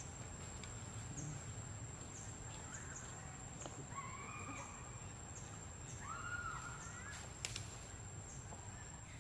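Two short, clear calls from a young long-tailed macaque, about four and about six seconds in, the second rising and then falling in pitch, over a steady high-pitched whine.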